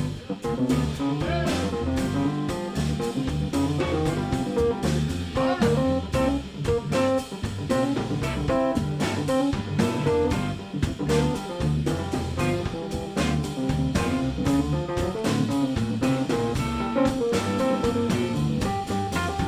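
Live blues band playing an instrumental passage between sung verses: guitar, bass, keyboards and drum kit.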